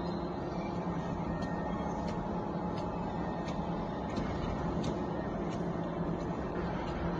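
Dumpling wrapper machine running: a steady motor hum with light, evenly spaced clicks, about three every two seconds.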